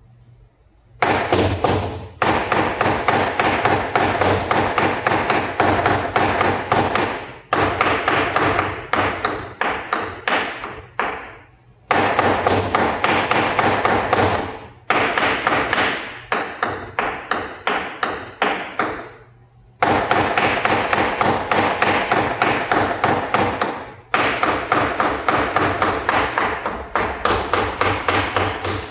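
Rapid, repeated chopping of chicken into keema (mince) with a blade. It comes in runs of several seconds, broken by brief pauses.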